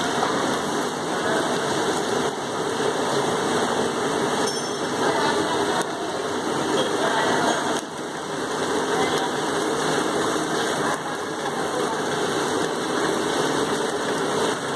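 Polypropylene twine extrusion line running: a steady, even mechanical noise from its motors and rollers, with no distinct rhythm.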